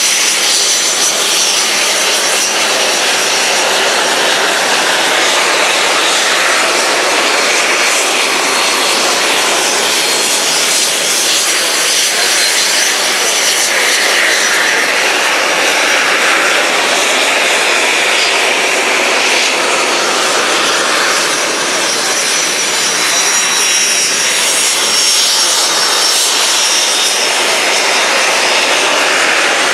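PZL TS-11 Iskra jet trainers' turbojet engines running as the jets taxi: a steady, loud jet roar with a faint high whine over it.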